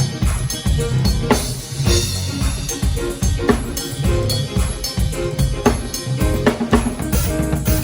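Music led by a drum kit: frequent bass drum and snare hits over held notes from pitched instruments.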